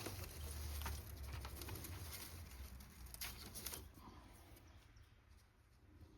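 Paper rustling and rubbing with small clicks, as paint is worked and lifted off a paper card. It fades out about four seconds in.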